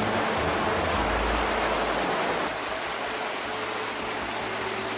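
Steady rushing of water, a dense even hiss that eases slightly about two and a half seconds in.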